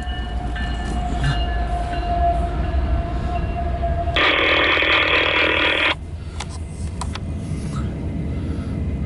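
Loaded CSX autorack freight train rumbling by on the rails, with a few sharp clicks near the end. About four seconds in, a sudden loud burst of scanner-radio static lasts nearly two seconds and cuts off abruptly.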